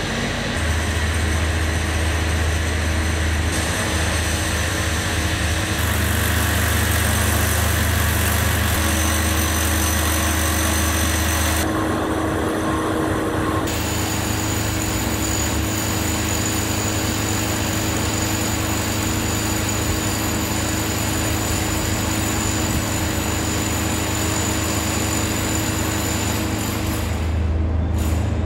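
Loud, steady mechanical background noise of the car park: a low hum under a constant rushing drone, with thin high whining tones. Its character shifts abruptly several times.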